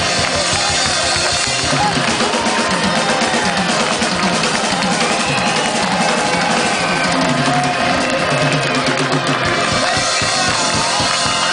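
Live rock band playing: a drum kit keeping a steady beat under electric bass and keyboard, with a male lead vocal.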